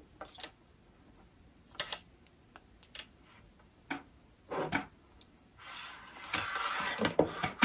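Scattered small clicks and taps, with a spell of rustling near the end, as wire leads with crimped connectors and an inline blade-fuse holder are handled and fitted together.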